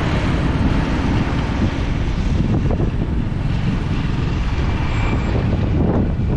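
Steady rumble of wind on the microphone over the running engine of a small motor scooter riding in traffic.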